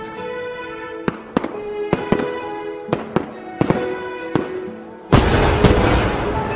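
Aerial fireworks going off: a run of sharp cracks and pops, then a loud boom about five seconds in. Music with sustained tones plays underneath.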